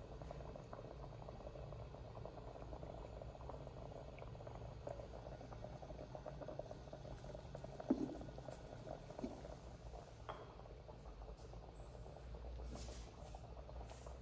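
Food simmering in clay pots on a stove, a steady fine bubbling and crackling. About 8 s in a clay lid knocks as it is lifted, followed by a couple of lighter knocks.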